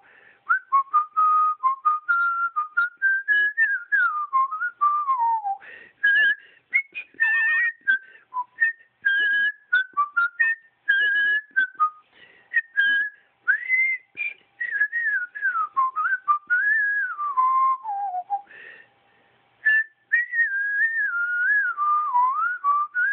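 A tune whistled as a single clear line of pitch that glides up and down between notes, in phrases with short breaks and a longer pause about three-quarters of the way through.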